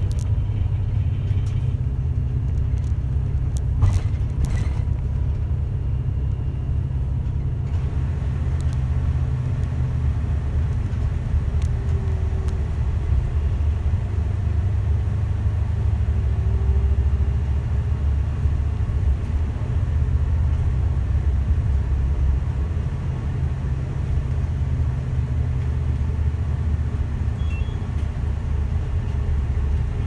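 Route bus heard from inside the cabin while driving: a steady low engine and road rumble, with a few short clicks and rattles in the first few seconds.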